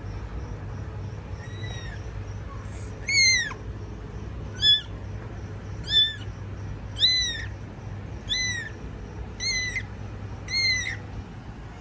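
A young kitten mewing over and over: short, high-pitched mews that rise and fall, about eight of them at intervals of a second or so.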